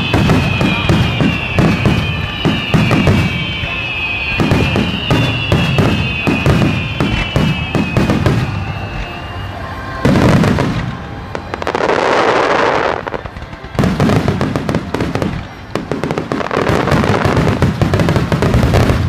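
Starmine fireworks barrage: rapid aerial shell bursts and dense crackling. Whistles fall in pitch through the first half, a loud burst comes about ten seconds in, and a hissing spray of sparks follows. It ends in another thick run of crackles.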